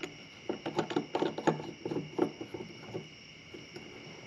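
Plastic clicking and scraping as a black plastic GoPro mount piece is twisted onto a threaded PVC fitting by hand, a quick run of clicks from about half a second to two and a half seconds in. Crickets trill steadily in the background.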